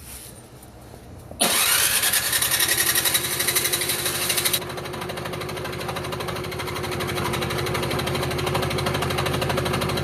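Electric starter on a Murray 7522ES snowblower's 163cc Briggs & Stratton engine cranking it over without the engine catching. The starter spins up with a quick rising whine about a second in, then cranks at a fast even rhythm for about eight seconds. It is loudest at first and runs steadier and a little quieter from about three seconds in. The owner puts the no-start down to the engine being flooded with gas.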